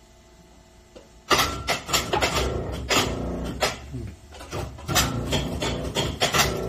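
LEMAS LHF-402E roll bending machine turning a thin metal sheet through its rolls, curling it into a tube. About a second in, loud irregular metallic clattering and rattling starts as the sheet rides on the rolls, easing briefly around the middle before going on.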